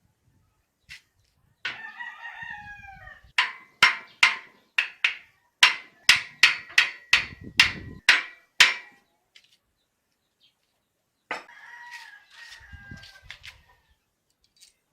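Chickens: a rooster crowing about two seconds in and again near the end, with a run of about a dozen loud, sharp clucks, roughly two a second, between the crows.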